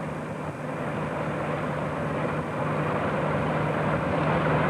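Road traffic noise: a motor vehicle's steady low engine hum under a rush of tyre and wind noise, growing gradually louder.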